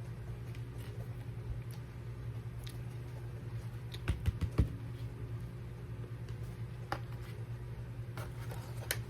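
A few small clicks and taps, bunched together about four seconds in with single ticks later, over a steady low hum.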